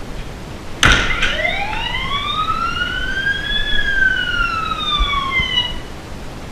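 A smartphone set up as a home alarm sounding a siren: a sharp click about a second in, then one slow wail that rises for about three seconds, falls for two and stops near the end. A steady hiss lies underneath.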